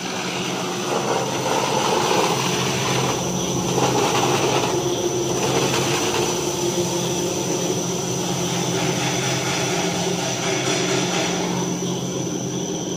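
Industrial brush sanding machine running steadily: its motors hum and its rotary sanding brushes spin, with a thin high whine above the broad machine noise.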